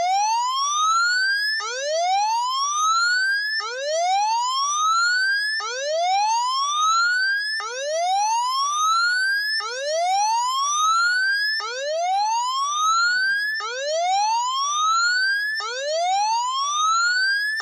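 Electronic whoop siren of a weather warning alert: a tone sweeps up in pitch over about two seconds and starts again at once, over and over.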